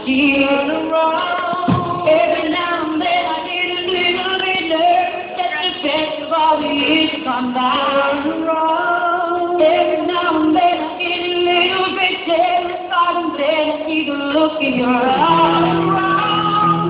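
A live song: female voices leading a group of singers, backed by a band, with long held notes near the end.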